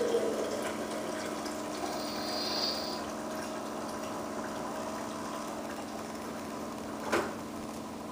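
A steady low hum, like a small motor, with a single sharp click about seven seconds in.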